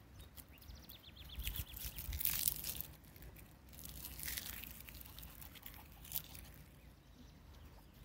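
Wind outdoors in gusts, rustling tree leaves twice in the first five seconds, over a low rumble of wind on the microphone. A short, rapid bird trill falls in pitch about a second in, and there is a single sharp click near the six-second mark.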